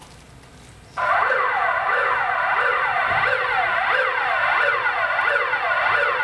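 A loud siren-like wailing sound effect, its pitch swooping down and back up about twice a second; it cuts in suddenly about a second in.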